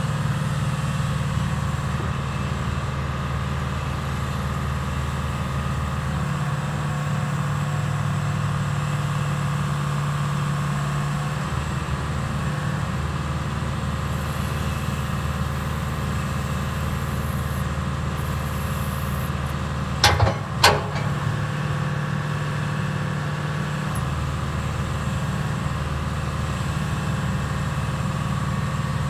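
1976 Bantam C-166 excavator's engine running steadily, its tone shifting a couple of times. About twenty seconds in come two sharp knocks, about half a second apart.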